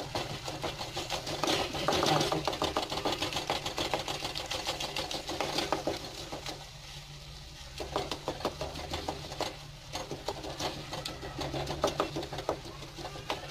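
A spatula scraping, pressing and tapping thick spice masala around a metal kadai in quick, irregular strokes, as the masala is fried down. A steady low hum runs underneath. The strokes thin out briefly about halfway through.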